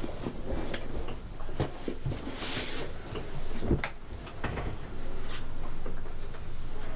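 Handling noises as a laptop is taken from its padded case, set down and opened: scattered knocks and clicks, with a rustling swish about two and a half seconds in.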